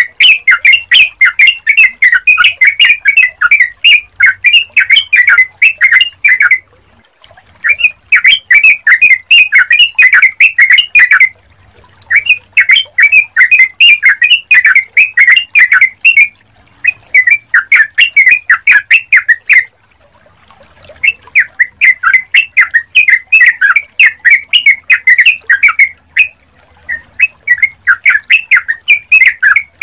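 Yellow-vented bulbul calling in bouts of fast, rapidly repeated chattering notes, each bout several seconds long and broken by short pauses. This is a lure recording meant to get other bulbuls to call back.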